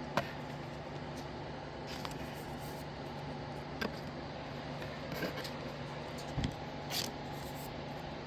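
Trading cards being slid into plastic card sleeves: a few short rustles and taps, scattered irregularly, over a steady low hum.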